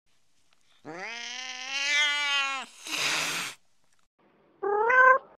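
A cat's long drawn-out yowl that rises slightly and holds, cut off by a short hiss, then, after a pause, one brief meow that rises in pitch.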